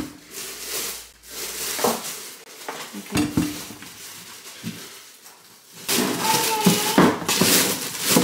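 Rustling and crinkling as packaging is handled, with light clatters of kitchen items, getting louder and busier over the last couple of seconds.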